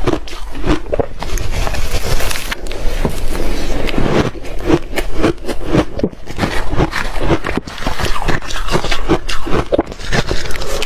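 Loud, close crunching of soft shaved ice being bitten and chewed: a dense run of gritty crunches, several a second.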